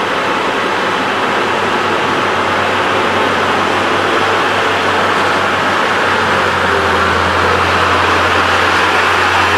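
Hino cargo truck's diesel engine climbing a steep hairpin bend, getting louder as it approaches, with a low engine drone that strengthens in the second half.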